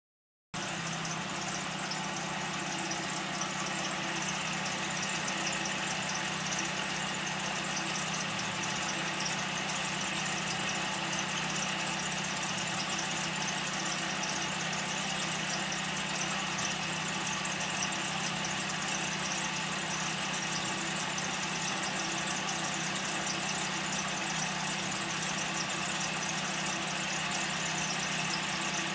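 Car engine idling with a steady squeal (kyuru-kyuru) from a failing clutch release bearing; the bearing still lets the clutch disengage, but it is wearing toward breaking apart.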